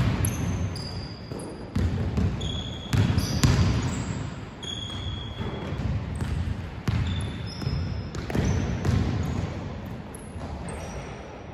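A basketball bouncing and thudding on a hardwood court, mixed with many short, high sneaker squeaks as players run and cut, all echoing in a large gym hall.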